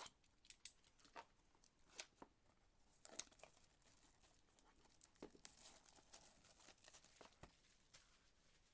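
Plastic wrapping on a sealed trading-card hobby box being torn open and crinkled, with scattered small clicks and taps, busiest from about three seconds in.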